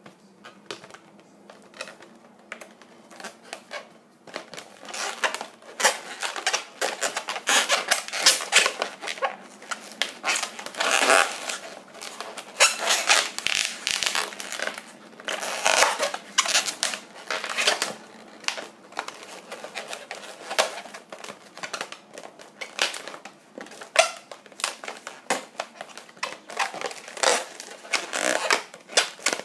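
Latex modelling balloons squeaking and rubbing against each other and the hands as they are twisted and squeezed into shape, in quick irregular strokes. Quieter for the first few seconds, then busier and louder.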